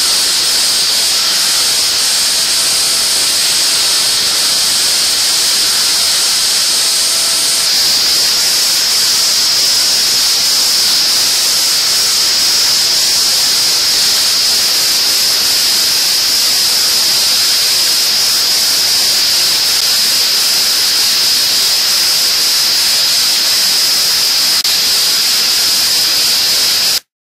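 Steady hiss of the air blow, with a high-pitched whine from a CNC spindle running a diamond-coated R3 ball end mill at 20,000 rpm as it mills cemented carbide. The sound shifts slightly about eight seconds in and cuts off suddenly near the end.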